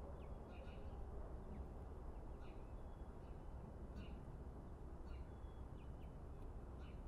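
Faint outdoor ambience: small birds chirping in short calls about once a second over a steady low rumble.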